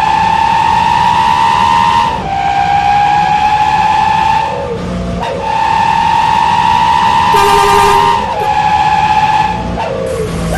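Basuri telolet musical horn on a truck blaring a string of long held notes, about two seconds each, stepping slightly in pitch from note to note, with a brief break about halfway through. The horn eases off near the end.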